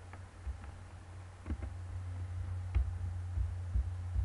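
Scattered soft clicks and light knocks from someone working a computer, irregularly spaced, over a steady low hum.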